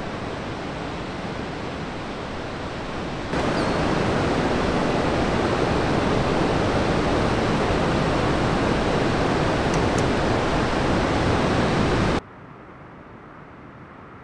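Steady noise of breaking ocean surf, with no voices. It jumps abruptly louder a little over three seconds in and drops sharply, much quieter, near the end.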